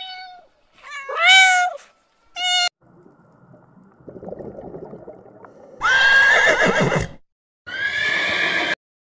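A kitten meows twice, a short rising-and-falling meow and a briefer one. After a faint, noisy pause, a horse whinnies twice, loudly.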